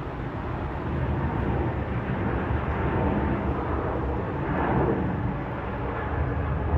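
Steady noise of a jet airliner, strongest in the low range, swelling briefly a little past halfway.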